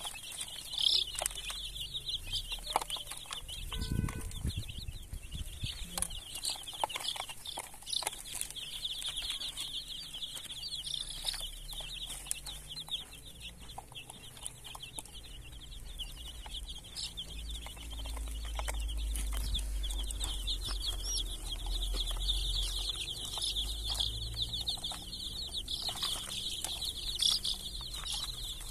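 Many young chicks peeping continuously in a dense, high chorus, with a hen clucking now and then.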